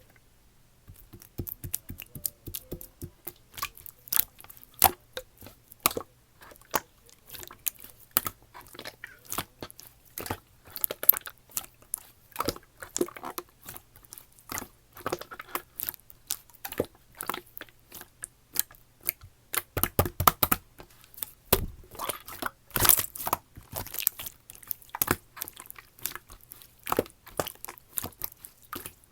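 Slime being squeezed, pressed and stretched by hand, giving a continuous stream of irregular sticky pops and clicks, with a few heavier squelches about two-thirds of the way through.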